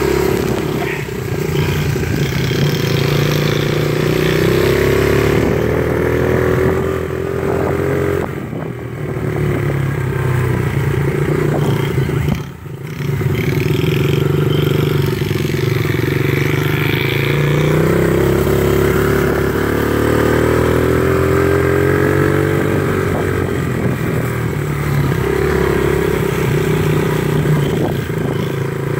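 Small Yamaha youth dirt bike engine running, its pitch rising and falling as the throttle opens and closes, with a brief drop in revs about halfway through.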